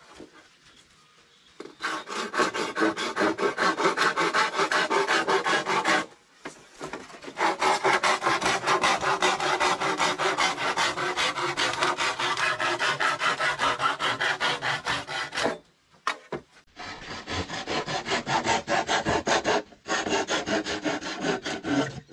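Rapid, even rasping strokes of something being rubbed or filed across a hard surface, several strokes a second. They come in three long runs separated by short pauses.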